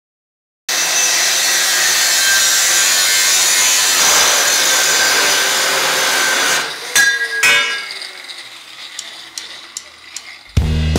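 A power tool runs loud and steady under load for about six seconds, then stops with two sharp clacks and a falling whine as it winds down. Hard rock music comes in near the end.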